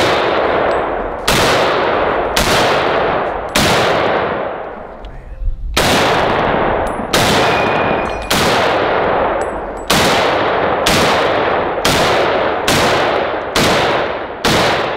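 M1 Garand rifle in .30-06 firing about a dozen single shots in quick succession, with a short pause near the middle; each crack trails off in a long echo.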